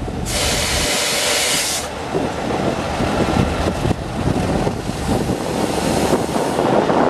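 ДМ62 diesel locomotive's two-stroke diesel engine running under load as the train pulls away, with a low rumble and wheel and rail noise. A loud burst of compressed air hisses near the start for about a second and a half.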